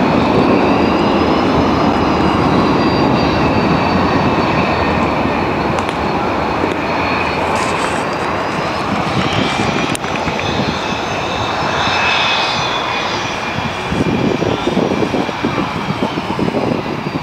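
Airplane engine droning overhead: a steady, loud drone with a faint whine that slowly rises and falls in pitch. There is a single sharp click about ten seconds in.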